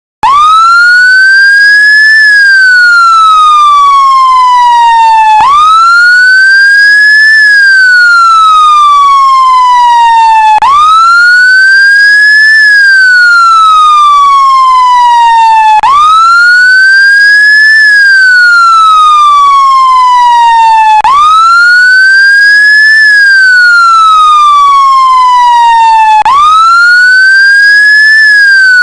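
British emergency vehicle siren sounding its wail tone. It climbs for about two seconds and slides down for about three, then snaps straight back up, about every five seconds.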